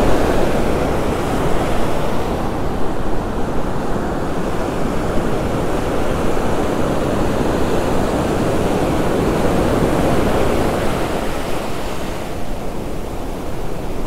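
Ocean surf breaking and washing up a sandy beach: a steady rushing noise that swells and eases, a little quieter near the end.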